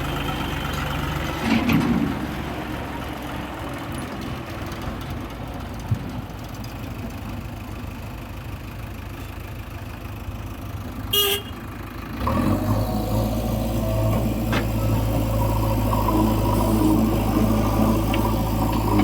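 Heavy diesel machinery engine running steadily at low speed, then picking up and running harder about twelve seconds in. A short horn toot sounds just before the engine picks up.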